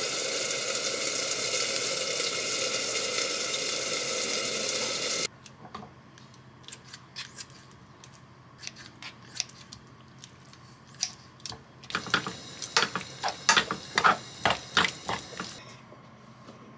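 Meat sizzling as it fries in a pan, cutting off suddenly about five seconds in. After that come scattered light clicks and taps of silicone tongs against the pan, then a run of louder, quicker clicks.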